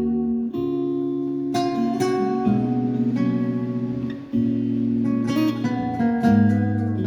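Acoustic guitar played freely, improvising: chords strummed and left to ring, with a new chord struck about every second.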